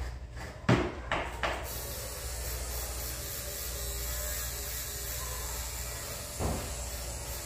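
Electric dog grooming clippers switched on about a second and a half in, then running steadily with a high buzz while trimming a schnauzer's coat. A few sharp knocks come just before it starts, and another near the end.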